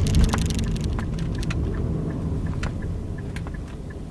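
Inside the cabin of a moving Nissan Skyline: low engine and tyre rumble on a rough road surface, with a burst of sharp clicks at the start and scattered single clicks after it. The rumble gradually gets quieter as the car slows.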